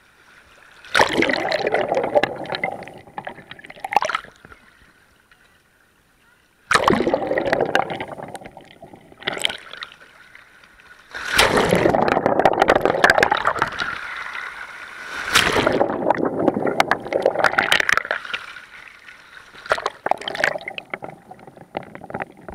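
Small sea waves surging over a partly submerged camera in the pebbly shallows: muffled rushing and gurgling swells about every four to five seconds, with quieter gaps between.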